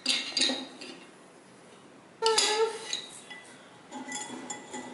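A wire whisk and utensils clinking and scraping against a glass mixing bowl of melted butter, in irregular clusters of small clinks. About two seconds in there is a short whiny cry from a small child.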